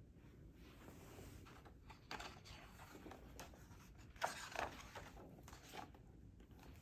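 Pages of a hardcover picture book being turned by hand, the paper rustling and swishing in several short strokes, loudest a little after four seconds in.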